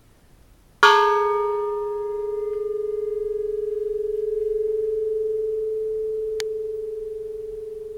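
Antique bronze Japanese Buddhist temple bell struck once, about a second in. Its bright upper tones die away within a second or two, while one clear low hum rings on with a slight wavering trill. The bell has a small hairline crack that barely affects its ring.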